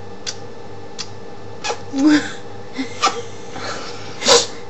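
Scattered short mouth sounds: lip smacks of blown kisses and small puffs of breath, then a short breathy burst of laughter about four seconds in, over a faint steady hum.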